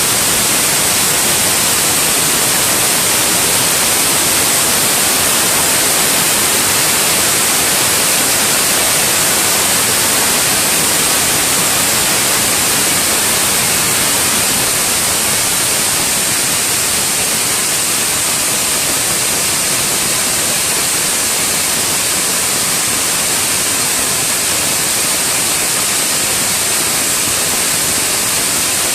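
Vial external washing machine running, giving a loud, steady hiss with no break or rhythm.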